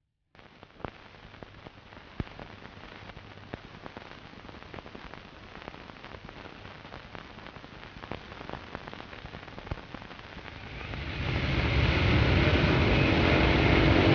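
Crackle and scattered pops from a worn old film soundtrack over faint hiss. About eleven seconds in, a loud, steady rushing roar swells up within a second and holds.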